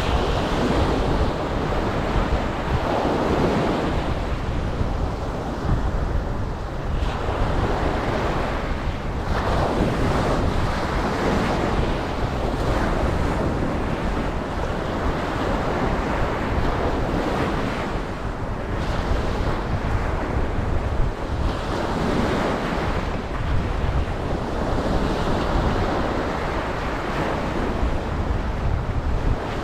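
Ocean waves breaking and washing up a beach, swelling and easing every few seconds, with a low wind rumble on the microphone underneath.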